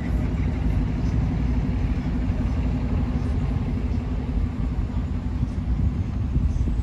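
Steady low rumble of road traffic on a busy city street.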